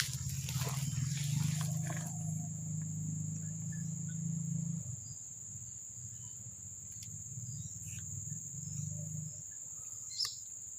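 Night insects, crickets or similar, giving a steady high-pitched drone, over a low steady rumble. A brief click sounds near the end.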